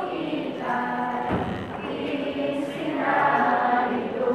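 A group of voices singing a chant-like song together, with one low thud about a second and a half in.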